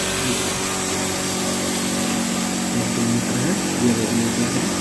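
Electric domestic flour mill (atta chakki) running steadily: a motor hum with a constant rushing whir.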